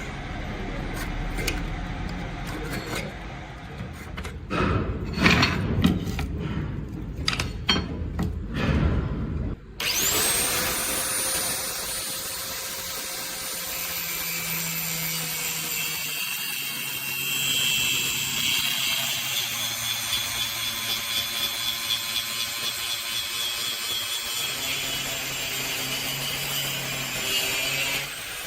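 Irregular knocks and scraping, then about ten seconds in an electric grinder spins up and runs steadily, grinding with a pulsing, stroke-by-stroke rhythm in the latter half.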